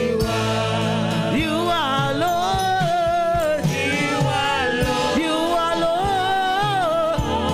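Live gospel praise-and-worship music: a singer holding long, wavering notes over instrumental band accompaniment with drum hits.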